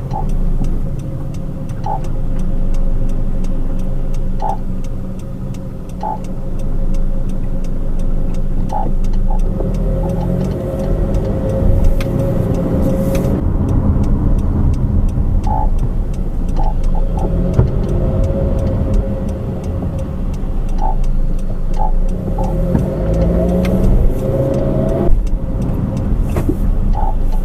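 Vehicle cabin noise of a 2013 Honda CR-V AWD: engine and road rumble with a steady hum. Near the end, the engine's pitch rises in a few sweeps as the car speeds up.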